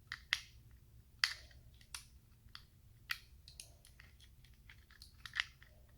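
Plastic LEGO Technic pieces clicking and snapping together as a key is put back together by hand, a dozen or so short irregular clicks, the loudest about a second in and near the end.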